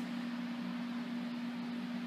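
Room tone: a steady hum over a faint hiss, with no other sound.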